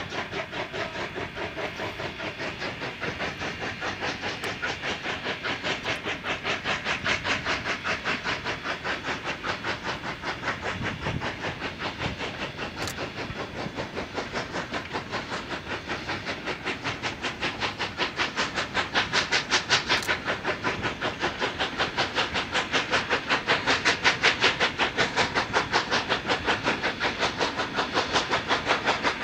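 Two Rio Grande K-36 narrow-gauge steam locomotives, 483 and 484, double-heading a freight train, their exhaust chuffing in a rapid, steady beat. The chuffing grows louder from about two-thirds of the way in.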